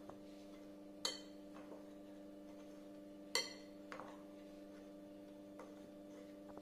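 Metal spoon stirring dry jaggery powder and sattu in a cut-glass bowl, clinking sharply against the glass about a second in and again past three seconds, with a few lighter taps, over a faint steady hum.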